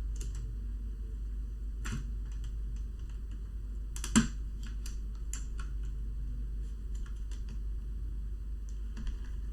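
Scattered small clicks and taps of plastic laptop parts and cables being handled and fitted, with one louder click about four seconds in, over a steady low hum.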